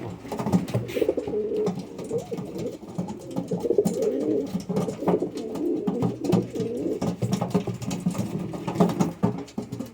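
Domestic pigeons cooing, several overlapping calls at once, with scattered light clicks and knocks.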